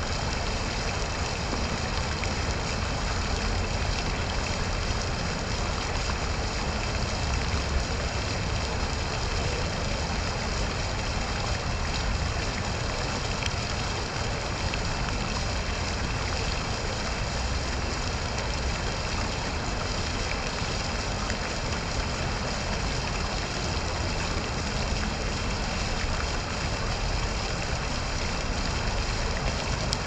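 Fountain water splashing steadily into its basin, from a jet arcing out of a frog statue and water spilling from a raised stone bowl, with a low rumble underneath.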